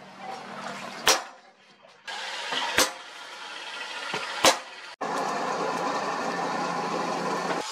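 Three sharp hammer blows, about a second and a half apart, striking a steel punch held in tongs on red-hot leaf-spring steel. About five seconds in they give way to a steady rushing of the charcoal forge fire with a low hum under it.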